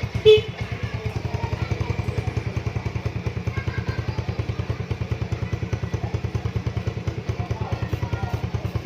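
Motorcycle engine idling with an even, steady pulse, and one short beep of the motorcycle's horn about a third of a second in. The horn is working normally on an electrolytic capacitor fitted in place of the weak battery.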